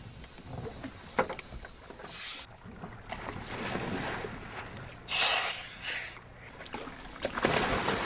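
Scuba divers splashing into the sea off a boat's stern, with wind and moving water under it. There is a short noisy surge about two seconds in, the loudest splash about five seconds in, and another near the end.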